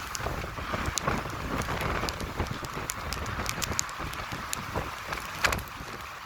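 Rainstorm: a steady hiss of rain on surfaces with many scattered sharp drop ticks, and gusty wind rumbling on the microphone. One louder tick about five and a half seconds in.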